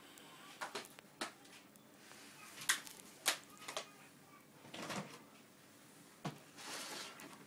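A few irregular soft knocks and clicks, with a longer rustle near the end.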